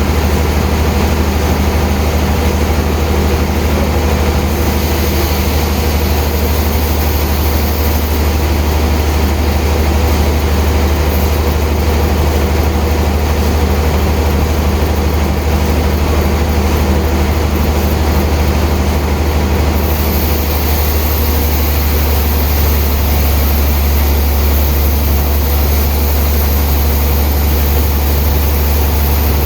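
Heavy sawmill machinery running with a steady, loud low drone.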